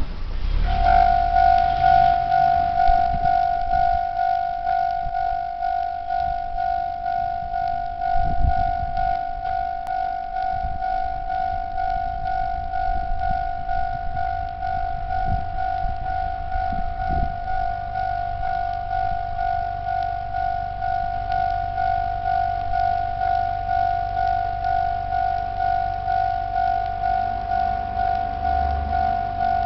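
Japanese railway level crossing's electronic warning bell starts about a second in and rings on in quick, even, repeated strokes: the signal that a train is approaching and the crossing is closing.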